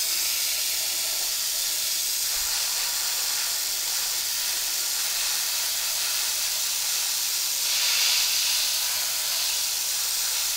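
Airbrush spraying thinned paint onto a plastic model hull: a steady hiss of air, a little louder about eight seconds in, that stops abruptly at the end.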